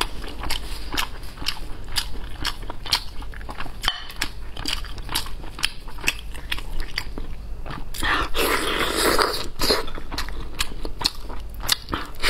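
Close-miked eating sounds: chewing and biting meat off a spicy braised lamb's head, with many sharp clicks of the mouth. There is a louder, noisier stretch about eight seconds in.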